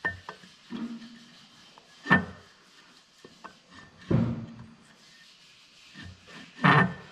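A few metal clinks and knocks from a churn drill's shaft-mounted clutch being turned by hand on the main shaft to line up its lock-pin hole. The loudest, with a short ring, comes about two seconds in and another near the end.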